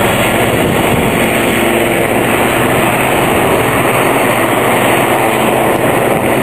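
Two Westland Lynx helicopters in low display flight, their rotors and turboshaft engines making a loud, steady noise.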